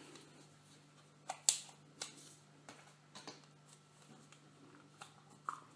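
A plastic Play-Doh tub being handled and dough pulled out of it: a few light plastic clicks and taps, the loudest about a second and a half in.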